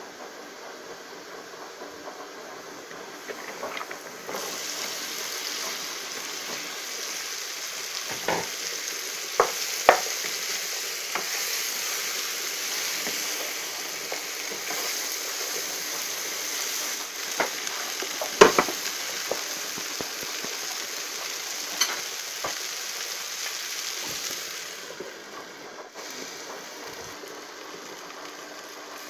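Chopped okra sizzling as it is stir-fried in a frying pan, with a spatula now and then scraping and knocking against the pan. The sizzle starts about four seconds in and dies down near the end.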